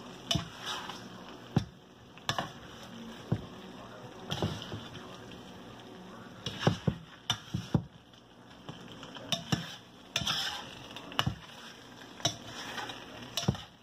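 A metal spoon stirring chicken livers in a stainless steel pan, with frequent irregular clicks and scrapes of the spoon against the pan over a faint sizzle of the frying food.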